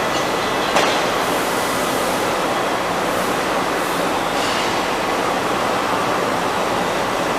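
Daewoo DMV 3016 CNC vertical machining center running, a steady mechanical rush and hiss with a sharp click just under a second in.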